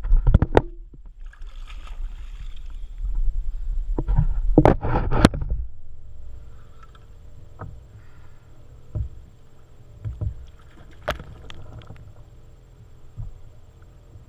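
Water splashing and sloshing against a kayak hull, with loud hard knocks and a low rumble at the start and again about four to five seconds in, from a hooked wahoo thrashing alongside the kayak; after that only light lapping and occasional small clicks.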